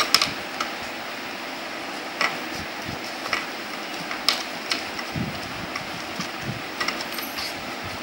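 Paper and thin card being handled and folded on a wooden table: scattered short crackles, creases and light taps over a steady background hiss.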